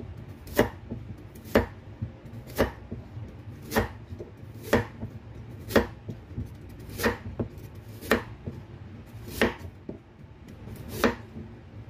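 Kitchen knife chopping a peeled carrot on a cutting board: about ten single sharp cuts, roughly one a second.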